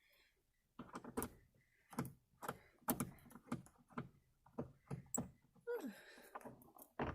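Screwdriver working out the sun visor's mounting screws on a 2009 Hyundai Sonata's headliner, heard as a run of irregular close clicks and knocks of metal and plastic.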